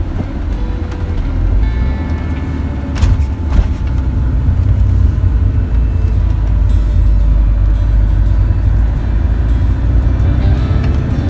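Car driving on a winding mountain road, heard from inside the vehicle: a steady low rumble of engine and road noise, with music faintly underneath. Two short knocks about three seconds in.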